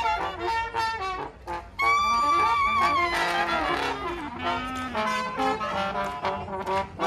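Small acoustic jazz band of trumpet, clarinet, trombone and saxophone playing together. It dips briefly about a second and a half in, then the full band comes back in loudly, with a falling slide in the lower part around the middle.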